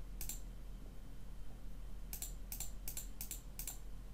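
Computer keyboard keystrokes: a single click near the start, then a quick run of about six keystrokes a little past two seconds in.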